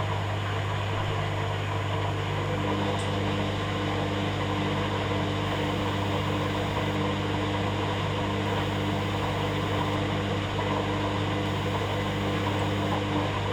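Hoover Dynamic Next washing machine running its rinse and spin cycle: a steady motor hum, with a higher tone joining a couple of seconds in.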